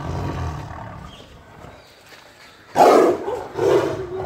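Bengal tiger giving two short, loud roars about a second apart, near the end, from close behind the cage bars.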